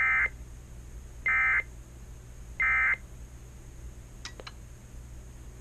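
Three short bursts of the Emergency Alert System end-of-message (EOM) SAME data tones, about a second apart, signalling the end of the alert. Two faint clicks follow near the end.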